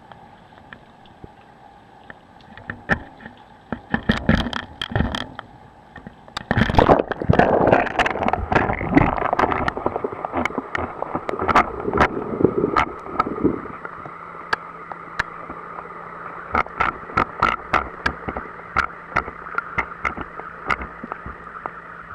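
A camera dipped into the sea: a few knocks, then splashing and gurgling as it goes under about six and a half seconds in. After that come clicks and knocks heard underwater over a steady low hum that starts about fourteen seconds in.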